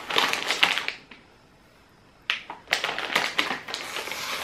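Plastic crisp packet crinkling and crackling as it is pulled open and handled, in two spells about a second apart.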